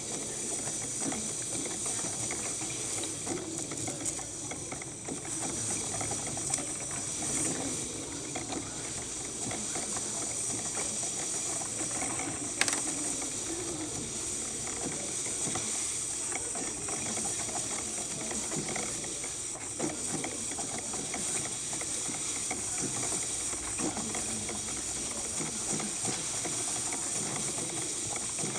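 Cuisinart drip coffee maker brewing: a steady hiss of steam with irregular crackling and gurgling as the heater pushes hot water up to the basket, and one sharp click about halfway through.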